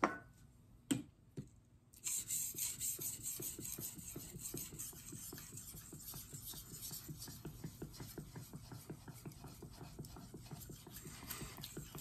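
Steel knife blade stroked rapidly back and forth on a wet Shapton Pro 5000-grit whetstone, a steady rhythmic scraping that starts about two seconds in, after two light clicks.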